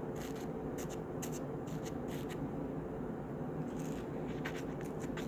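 Bubbly homemade slime being squeezed and worked by hand, the air bubbles in it popping as faint, irregular little clicks and crackles.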